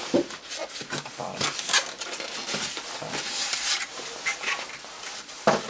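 Plastic packaging rustling and crinkling, with small hard clicks and taps, as a boxed die-cast scale model is unpacked by hand; a sharper knock near the end.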